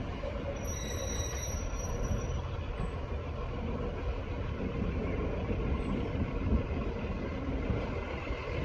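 Heritage diesel multiple unit pulling away slowly, its underfloor diesel engines running with a steady rumble. A thin, high wheel squeal sounds for about two seconds near the start.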